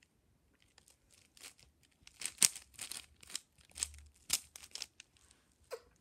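A 5x5 Rubik's cube's plastic layers being turned quickly by hand through a move sequence: a run of sharp clicks and scraping rasps, loudest in the middle.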